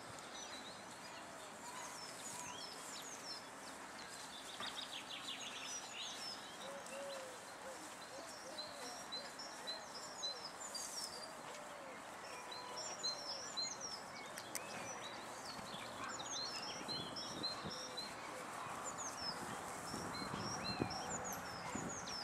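Small birds chirping and singing throughout, many short high calls over a steady outdoor background, with a few soft low knocks near the end.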